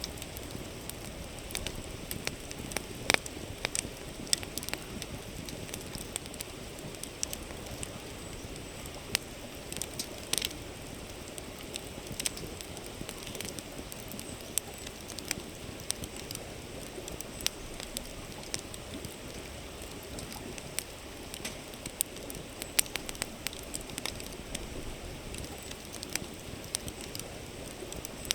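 Wood campfire crackling, with frequent irregular sharp pops and snaps, over the steady rush of a flowing river.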